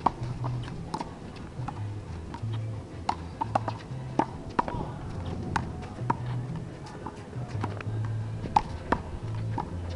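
Sharp smacks of a handball struck by hand and hitting the wall during a rally, over music with a low, stepping bassline.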